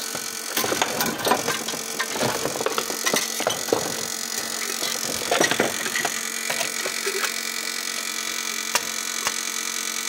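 Steady electrical hum with irregular metal clicks, knocks and scrapes in the first six seconds, from a welding electrode holder and clamp being worked against a truck's flywheel housing to reach a broken-off bolt.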